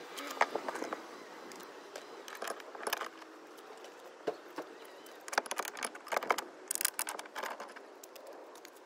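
Light metallic clinks and rattles in several short bursts, with quiet gaps between: metal tools, bolts and tow bar parts being handled while fitting a tow bar at the car's rear frame rail.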